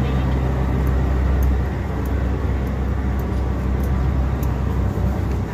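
Tour boat's engines droning steadily as a low rumble, heard inside the enclosed passenger cabin while under way.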